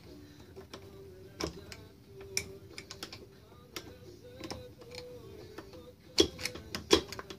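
Scattered sharp metallic clicks and taps from a screwdriver working the adjuster of a Honda ATV's front drum brake, with a quick cluster of clicks near the end.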